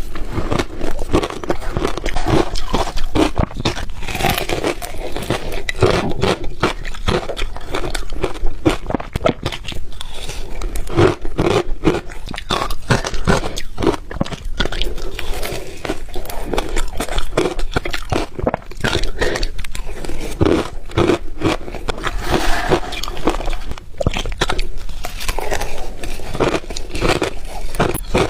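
Ice being bitten and chewed close to the microphone: a dense, continuous run of sharp cracks and crunches as the pieces break between the teeth.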